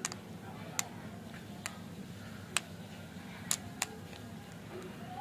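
Hard bar-shaped lollipops clicking against each other and their sticks as they are handled: about six sharp, separate clicks at irregular intervals over a low steady hum.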